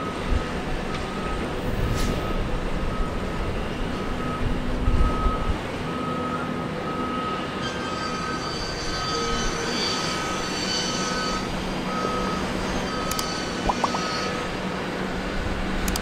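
Construction-site machinery running steadily, with a reversing alarm beeping repeatedly over it; the beeping stops near the end.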